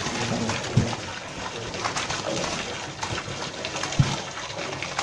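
Water splashing and sloshing in a shallow tarp-lined shrimp tank as the shrimp are handled, with two dull knocks, one about a second in and a louder one about four seconds in.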